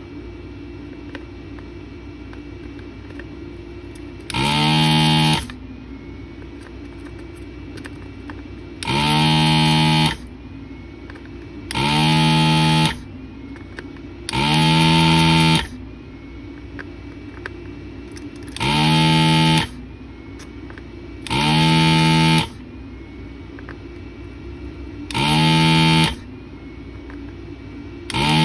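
Anesty ZD-915 desoldering gun's built-in vacuum pump buzzing in bursts of about a second, about eight times every few seconds, as it sucks molten solder from the pins of an IC on a through-hole board. A steady low hum runs between the bursts.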